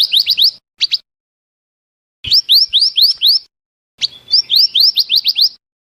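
Recorded calls of a minivet (mantenan, the bright-red 'merapi api' bird), played as a lure: phrases of five or six quick, rising whistled notes, with one short pair of notes about a second in. The phrases are separated by gaps of complete silence.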